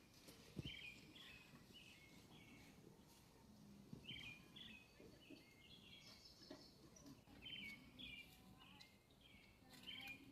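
Faint outdoor ambience with a small bird chirping over and over in short, quick phrases of high notes, and a soft low knock about half a second in.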